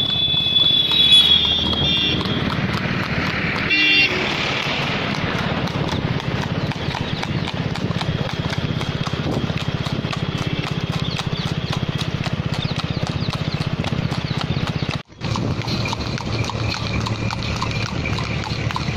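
A horse trotting fast on an asphalt road while pulling a two-wheeled cart: a rapid, even clip-clop of hoofbeats over a steady low rumble. The sound drops out for a moment about fifteen seconds in.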